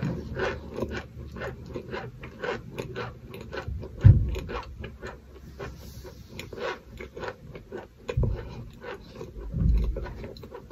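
Crunchy toasted cornstarch 'chalk' cereal being chewed: a steady run of crisp crunches, about three a second, with a few heavier low thuds, the loudest about four seconds in.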